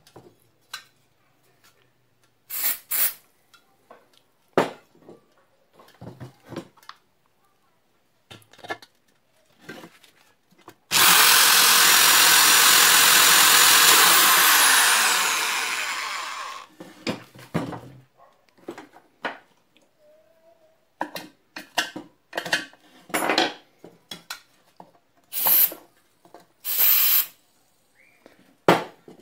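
Cordless drill drilling into a stripped screw in an aluminium pressure cooker's handle with a bit thinner than the screw. It runs for about five seconds about a third of the way in and fades out over its last couple of seconds. Short bursts and handling knocks come before and after it.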